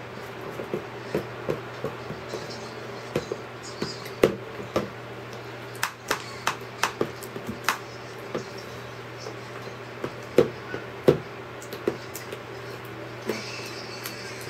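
Hands kneading and stirring a glue-and-lotion slime mixture in a plastic tub, giving irregular soft clicks and knocks as the fingers work the mixture and hit the bowl. A steady low hum runs underneath.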